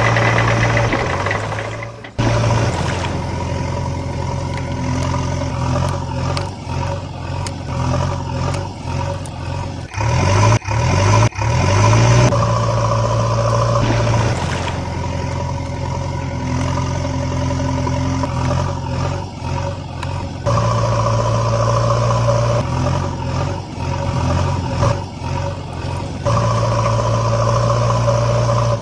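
Truck engine idling and revving, with a steady low hum whose pitch and loudness shift abruptly several times, as if in cut segments.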